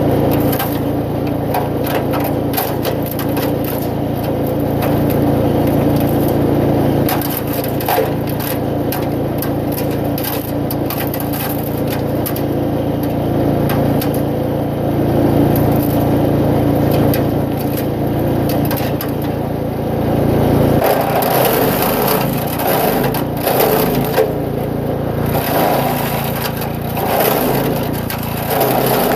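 Eliet Major 2-inch wood chipper running with its small petrol engine humming steadily while branches are fed in, crackling and splintering as they are chipped. About two-thirds of the way through the steady engine hum gives way to louder, rougher crunching.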